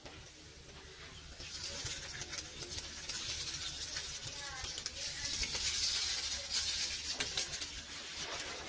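Cubes of beef loaf frying in hot oil in a pan, sizzling and crackling as they go in. The sizzle starts about one and a half seconds in and grows louder.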